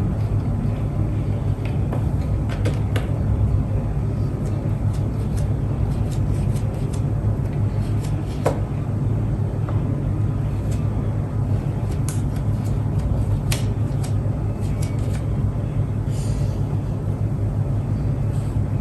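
A steady low hum, with scattered light taps and clicks over it.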